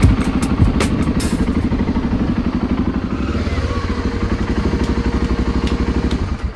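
BMW F650GS Dakar's single-cylinder engine idling with an even, regular pulse, then stopping at the very end.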